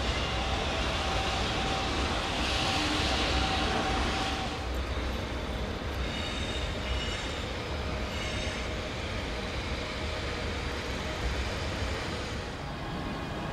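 Locomotives standing at a rail yard with their machinery running: a steady low rumble with faint electrical whine tones. A brighter hiss rises between about two and four and a half seconds in, and thin high tones come and go a little later.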